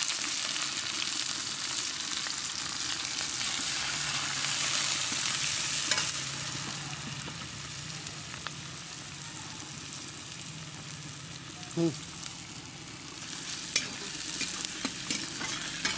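Chopped onion sizzling in hot oil in a kadhai, stirred with a metal spatula that scrapes and knocks against the pan. The sizzle is loudest for the first several seconds after the onion goes in, then settles lower.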